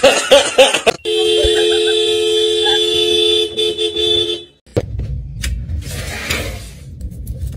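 Car horn sounding one steady blast of about three seconds, set off by a dog pawing at the steering wheel. A short voice comes just before it, and a low rumble follows.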